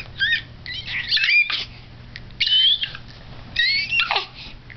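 An infant making a run of shrill, seagull-like squawks: about four short high-pitched squeals that swoop up and down in pitch, with short gaps between them.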